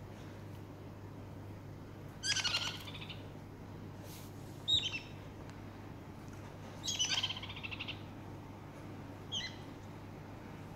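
Small pet bird chirping: two longer rapid chattering calls and two short single chirps, spaced a couple of seconds apart.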